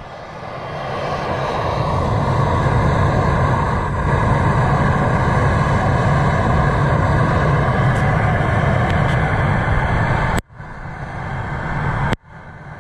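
Handheld gas torch burning with a steady rushing hiss, heating a seized bolt to free it. It builds up over the first couple of seconds and breaks off abruptly twice near the end.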